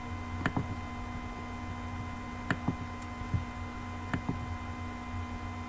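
Computer mouse clicking, about five or six short, sharp clicks spread out over a few seconds, over a steady electrical hum with a few constant tones.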